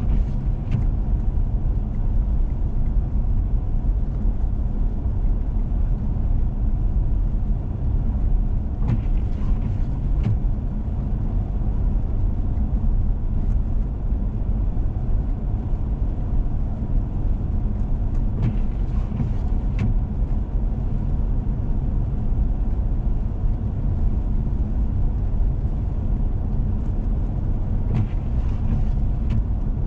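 Four-wheel-drive vehicle driving on a snowy road: a steady low rumble of engine and tyre noise, with faint clicks about every nine seconds.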